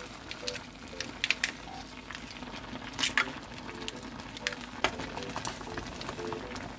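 Cooking in a pot of ramyeon: scattered sharp clicks and clinks of chopsticks and utensils against the pot as tofu and other food go in and the noodles are stirred, over a low bubbling of the broth.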